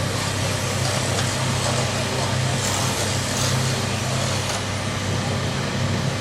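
Steady low hum of a large vehicle's engine idling, with a constant outdoor background noise.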